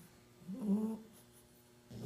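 Puppies snoring in their sleep: a short pitched snore about half a second in, and the next snore starting near the end.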